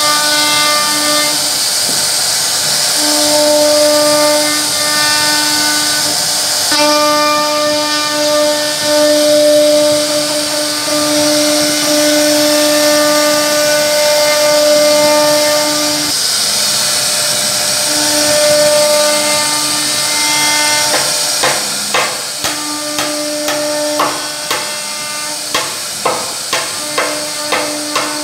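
CNC router spindle carving a scroll pattern into a wooden board: a loud hiss of the bit cutting wood over a steady motor hum that drops out and returns every few seconds as the cut changes. In the last quarter, a run of sharp knocks, about one or two a second.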